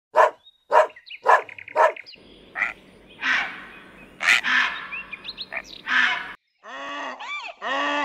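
A dog barks four times in quick succession. Then a great egret gives harsh croaks, with a few small bird chirps among them. Near the end a wild ass begins braying, a run of rising-and-falling calls.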